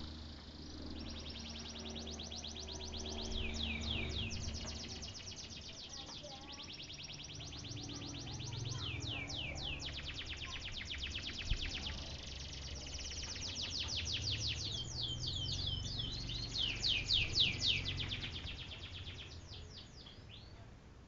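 Domestic canary singing: long fast trills of rapidly repeated high notes, broken several times by rolls of quick downward-sweeping notes.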